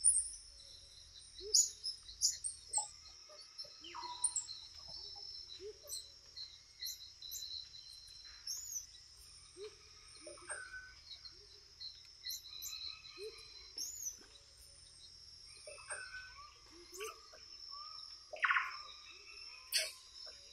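Amazon rainforest ambience: a steady high-pitched hum with many short chirps and calls from birds and other animals scattered throughout.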